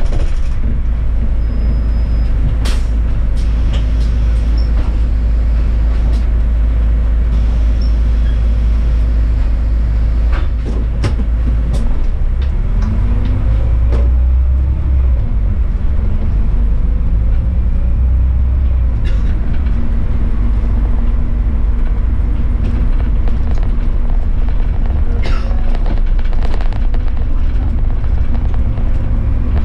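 City bus running along a snowy road: a steady low engine-and-road rumble, the engine note sliding up and down about halfway through. Sharp knocks and rattles come now and then.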